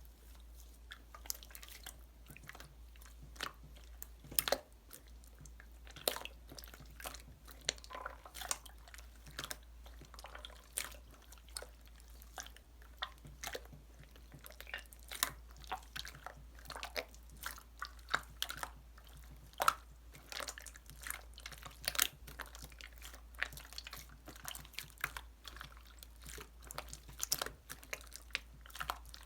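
Close, irregular crunching and clicking, several sharp clicks a second, over a steady low hum.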